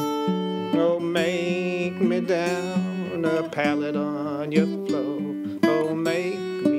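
A 1964 Martin 00-21NY acoustic guitar fingerpicked in country blues style, a steady alternating bass under plucked melody notes.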